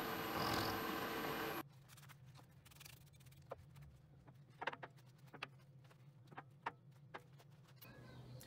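Bench milling machine running steadily as a small end mill cuts a slot in a metal block, stopping abruptly about a second and a half in. Then faint scattered clicks and taps as the metal workpiece is handled.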